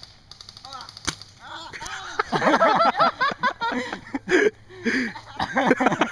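Airsoft guns firing: a rapid burst of shots at the start and a single sharp shot about a second in, followed by players yelling.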